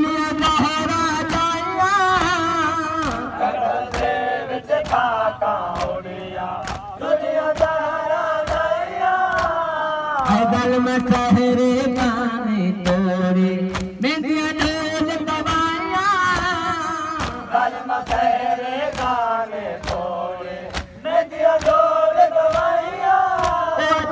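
A man recites a Punjabi noha (Shia mourning lament) into a microphone, chanting in long, wavering held lines. Sharp slaps recur at a steady pace under the voice: mourners beating their chests in matam.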